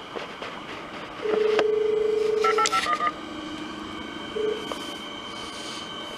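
Electric suburban train's horn: one long steady blast, then a short toot about three seconds later, as the train approaches the platform.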